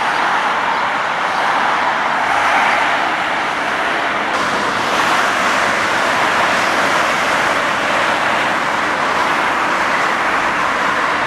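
Steady city road traffic noise, an even wash of passing cars that swells slightly now and then, with no single vehicle standing out.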